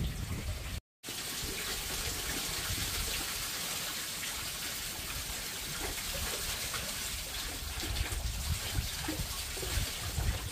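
Running water: a steady, even rush that cuts out for a moment about a second in, then carries on unchanged.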